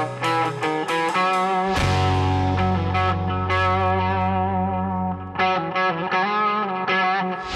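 Music track led by electric guitar with effects; a low chord rings out from about two seconds in and fades, then quicker guitar notes return about five and a half seconds in.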